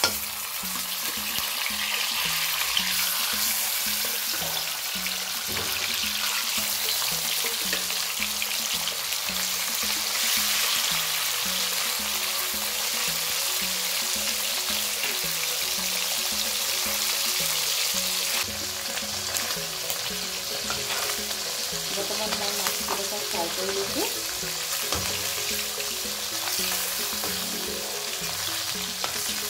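Small whole bhangon fish frying in hot oil in an iron kadai, with a steady sizzle. A spatula now and then scrapes the pan as the fish are turned.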